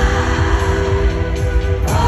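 Live band music at a pop concert, loud, with a heavy bass beat under held chords; the music changes sharply just before the end.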